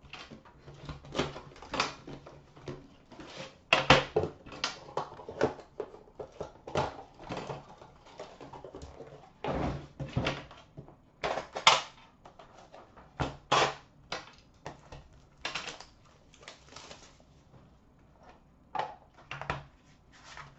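Irregular knocks, taps and short rustles as a The Cup hockey card tin and its cardboard sleeve are handled, set down on a glass counter and the tin's lid is lifted off.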